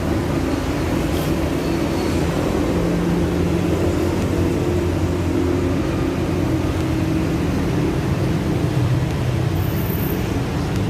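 Steady low mechanical drone, like an engine running, with no clear break or change.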